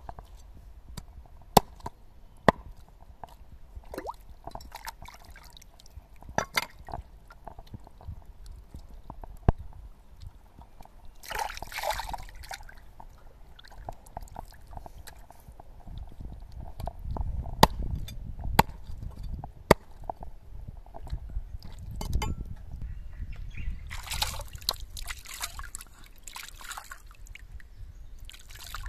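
Hands washing pieces of raw rabbit meat in shallow stream water: sloshing and splashing in two bursts, one about a third of the way in and a longer one near the end, with scattered sharp clicks.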